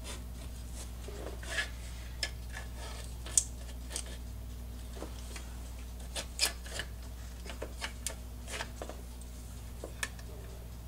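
Scattered light clicks, taps and scrapes of a plastic case fan being handled and fitted into a sheet-metal power supply housing, one sharper click about three and a half seconds in. A steady low hum runs beneath.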